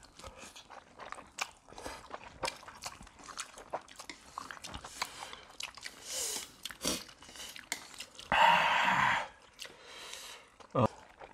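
Close-miked eating sounds from people eating instant fire noodles and king crab meat: chewing, wet mouth clicks and smacks, and noodle slurping. About eight seconds in comes one louder, noisy intake through the mouth lasting about a second.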